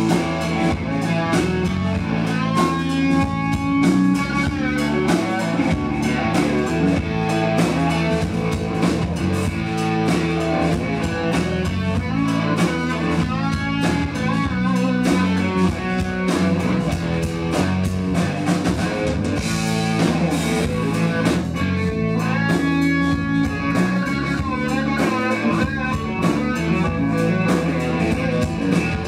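Live rock band playing an instrumental passage: an electric guitar lead with bent notes over bass guitar and drum kit.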